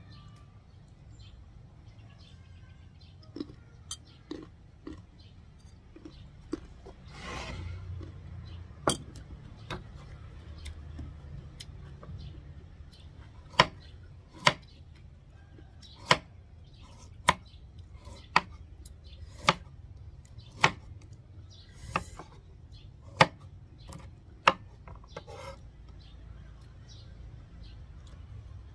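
Kitchen knife slicing a young green mango and knocking on a wooden cutting board: a run of about ten sharp knocks, roughly one a second, in the second half, after a few scattered quieter taps.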